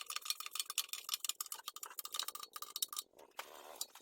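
Rapid, irregular metallic ticking and clinking, many clicks a second over a faint steady tone.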